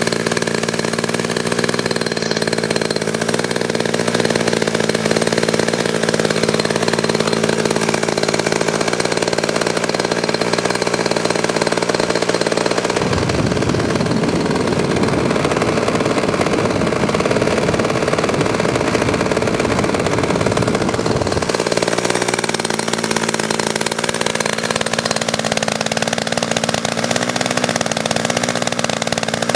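DLA 56 single-cylinder two-stroke gasoline model-aircraft engine running steadily on a test stand, turning a wooden propeller and exhausting through a can muffler. For several seconds in the middle a rough rumble covers the low end, and about three-quarters through the engine's pitch creeps up slightly.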